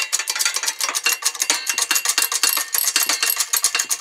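A hydraulic shop press being worked to press apart a 47RE/48RE transmission's overdrive section, its pump giving a fast, even metallic clicking of about ten clicks a second.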